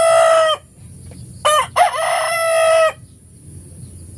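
Rooster crowing: the end of one crow fades about half a second in. A second full crow follows about a second and a half in, opening with short broken notes and then holding one long note for over a second.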